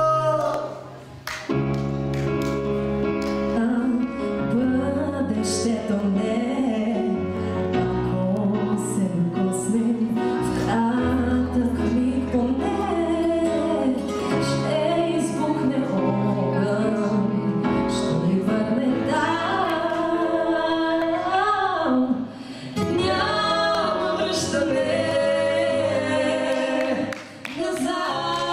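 A man and a woman singing a duet into handheld microphones over an instrumental backing. The music drops out briefly about a second in and twice near the end.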